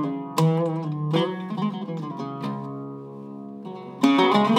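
Iraqi-style oud with a cedar top and mahogany back, played with a plectrum: single plucked notes, one held and left to fade for about a second, then a louder run of notes near the end.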